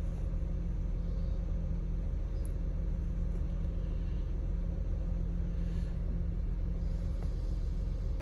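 Honda Accord's 3.5-litre V6 idling steadily.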